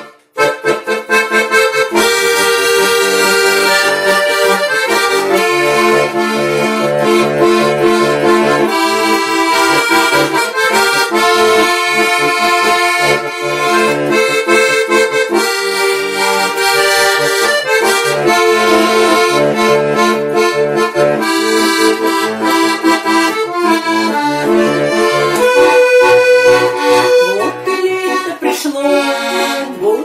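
Button accordion playing a lively instrumental tune, the melody over a regular pulsing bass accompaniment.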